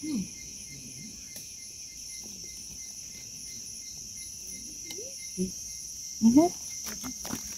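Steady high-pitched drone of an insect chorus. A brief bit of a voice sounds about six seconds in.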